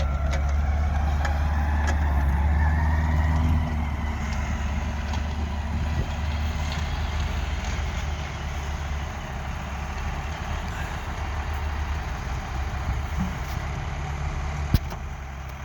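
Heavy diesel engines of a loader and backhoe working hard while pushing a crawler tractor, with a faint rising whine over the first few seconds. The engines ease off at about four seconds and run on more quietly, and a single sharp clank comes near the end.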